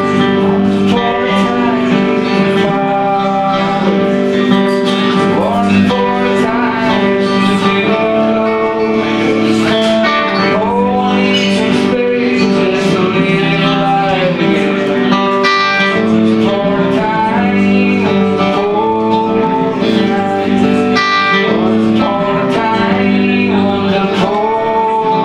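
A man singing a blues-folk song, accompanied by a strummed acoustic guitar.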